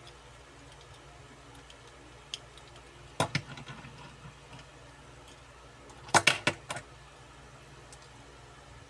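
Small metal diecast toy cars clicking and clacking against each other and the table as they are handled and set down: a few sharp clicks about three seconds in, then a quick cluster of louder clacks just after six seconds, over a faint steady hiss.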